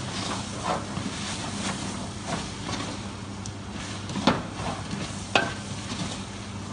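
Wooden spoon stirring sliced onions in a large stainless steel pot, the onions sizzling as they caramelize without oil. Two sharp knocks of the spoon against the pot come about four and five seconds in.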